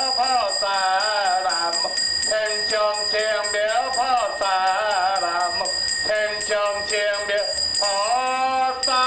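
Buddhist liturgical chanting: a monk's voice sings drawn-out, gliding phrases through a microphone. A small brass handbell rings without a break under it, shaken at about four strokes a second.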